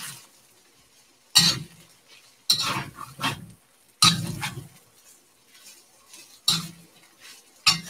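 A wok spatula scraping and knocking against a cast iron wok as rice is stirred and turned in it: about six sharp strokes, unevenly spaced, with quiet gaps between.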